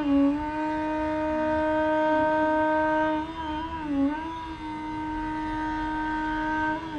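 Bansuri (bamboo flute) playing raag Yaman: a long held note, with a short wavering bend around the pitch about three seconds in, then held again, and a dip into the next phrase at the very end.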